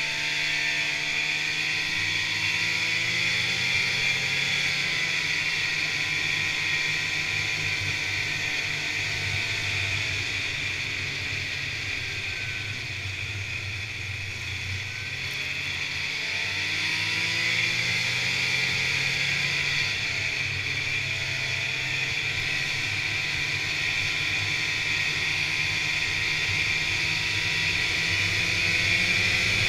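Snowmobile engine running under way. Its pitch eases down over the first few seconds, drops about halfway through and climbs again soon after, over a steady hiss.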